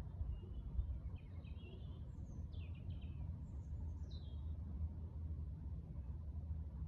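A small bird gives a quick run of high chirps and short falling notes during the first four and a half seconds, then stops. A steady low rumble runs beneath it.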